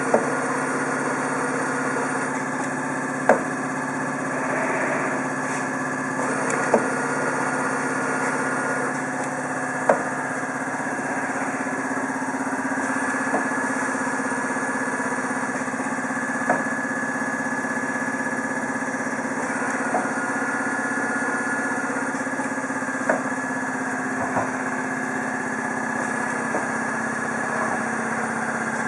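Six-lane intermittent-motion (tact-type) filling machine running: a steady motor hum with a sharp clack about every three seconds as it steps through its cycle.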